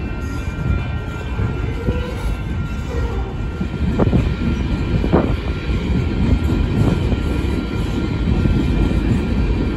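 Empty coal gondolas of a freight train rolling past, a steady rumble of wheels on rail with a couple of sharp clanks near the middle.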